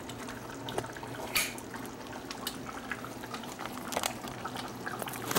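Pot of goat meat and tamarind soup (sinampalukang kambing) simmering, with a steady bubbling and scattered small pops of bubbles bursting at the surface.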